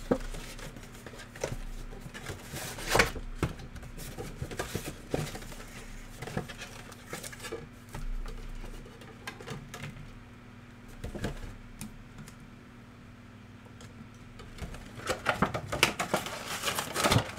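Trading-card packs and their cardboard packaging being handled and opened by hand: scattered rustles and clicks, a sharper click about three seconds in and a busy flurry of handling near the end, over a faint steady electrical hum.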